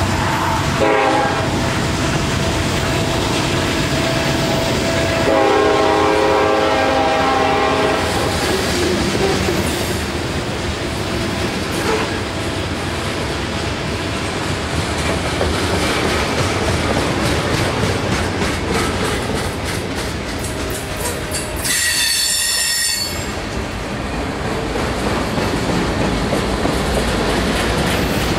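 Freight cars rolling past close by: a steady rumble with the clickety-clack of wheels over the rail joints. A few seconds in, a pitched tone sounds for about three seconds, the loudest part, and near the end a brief high-pitched squeal lasts about a second.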